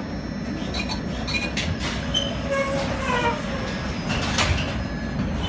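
Inside a tram car standing at a stop with its doors open: a steady low hum from the tram. Scattered clicks and a short rising tone near the middle are heard, with a clunk about four and a half seconds in.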